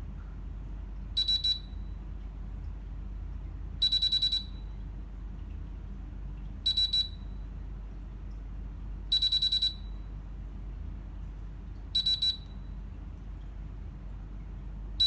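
Biometric time clock beeping during fingerprint enrollment as the same finger is scanned three times: groups of rapid, high-pitched beeps every two to three seconds, alternating short runs of about three beeps with longer runs of about six.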